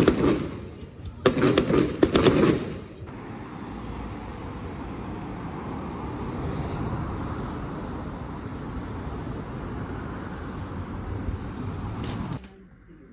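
Aerial fireworks bursting with a crackle: the tail of one burst, then a second burst about a second in that dies away by three seconds. After that comes a steady background noise of a street at night.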